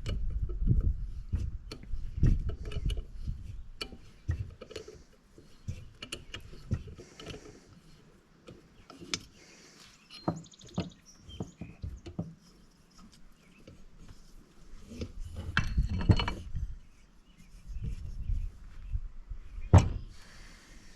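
Metal engine parts and hand tools being handled while a valve, spring and spring retainer are fitted into a cylinder head: scattered clicks, taps and knocks with quieter stretches in between, and the sharpest knocks near the end.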